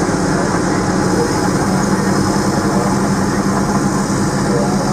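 Heavy diesel engines of an 850 crawler dozer and a loaded Peterbilt log truck working hard as the dozer tows the truck up a muddy grade, a steady heavy drone.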